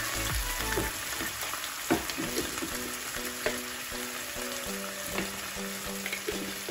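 Onions and tomato-based pasta sauce sizzling in a frying pan over a gas flame, with a few light knocks as a silicone spatula scrapes sauce out of the jar.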